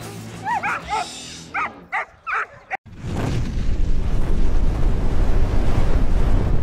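German Shepherd dog barking and yelping in short high-pitched yips while tugging on a bite rag. About three seconds in this cuts off, and a loud, steady rushing rumble takes over.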